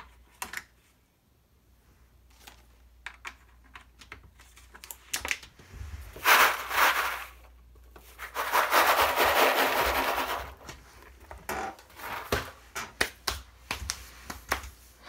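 Handling noises: scattered clicks and taps, with a short loud burst of rustling noise about six seconds in and a longer one of about two seconds soon after.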